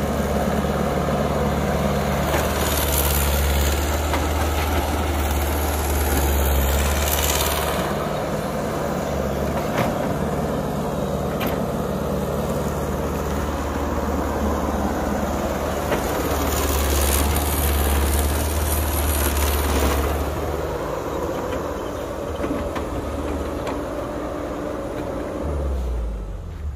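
Caterpillar hydraulic excavator's diesel engine working as it digs and swings soil, running harder twice, over the first several seconds and again past the middle, and easing back in between.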